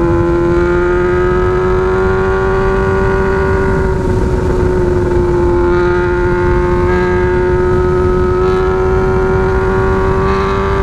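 Honda CB600F Hornet's inline-four engine with a megaphone exhaust, running at steady high revs while cruising. Its pitch holds nearly level, dipping slightly a few times and easing back up.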